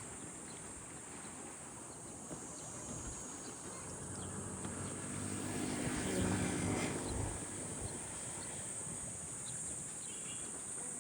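A motor vehicle passes by, its engine growing louder from about four seconds in, peaking around six to seven seconds and fading away, over a steady high-pitched buzz of insects.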